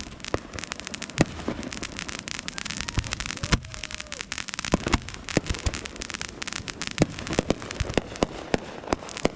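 Fireworks going off: a rapid, irregular run of sharp bangs and pops over continuous crackling.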